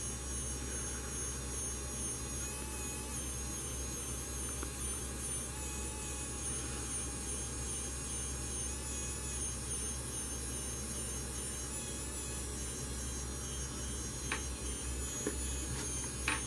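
A 3D printing pen's small feed motor runs steadily, pushing plastic filament out of the nozzle, over a low hum. A couple of light clicks come near the end.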